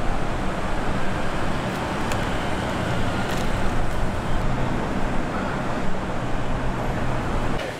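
Steady outdoor traffic noise, an even rushing haze with a low hum, with a few faint clicks over it.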